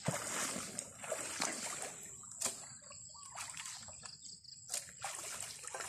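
Wading steps through shallow pond water and grass: splashing and rustling with a few short, sharp knocks, over a faint steady high tone.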